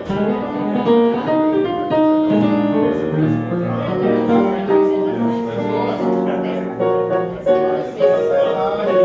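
Digital piano being played: an unbroken flow of chords and melody notes.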